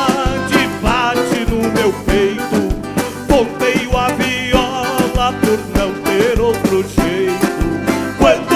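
Live band playing a gaúcho folk song: a man sings into the microphone with vibrato over acoustic guitars, bass and a steady drum beat.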